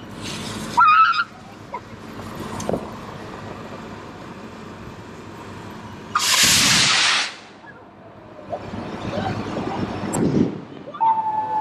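Lit firework rocket going off: a loud hiss lasting about a second as it launches, about six seconds in, followed by a longer, swelling rush of noise.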